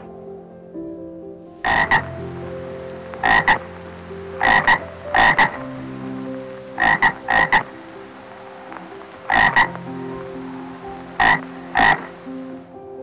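A gecko calling: short, loud croaking double notes repeated roughly every one to two seconds, over soft sustained background music.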